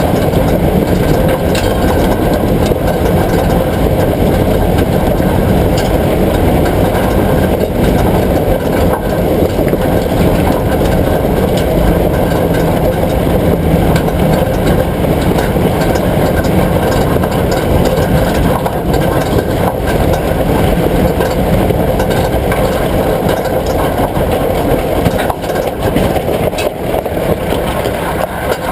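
Vehicle running steadily with a dense low rumble.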